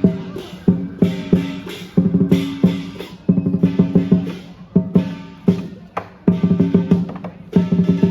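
Lion dance percussion: the big lion drum with crash cymbals and gong playing a driving beat of loud accented strikes with quick rolls between, the metal ringing on after each accent.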